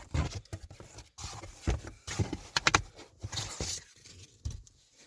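Packaging being handled as the contents of a cardboard box are taken out: irregular light knocks, taps and rustles, with a quick run of clicks about halfway through.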